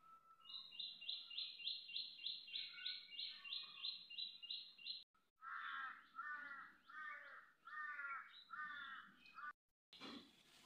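Birds calling: first a fast run of high repeated notes, about four a second, then a slower series of about six lower calls.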